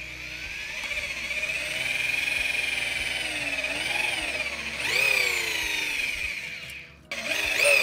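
DeWalt electric drill boring an angled pilot hole into a pressure-treated 4x4, its motor whining and bogging down and picking up again as the bit bites into the wood. It stops just before the end, then starts again with quick bursts of the trigger.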